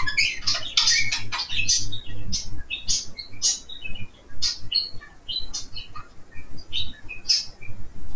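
Budgerigars chirping: a rapid run of short, high chirps, densest in the first few seconds and more scattered after.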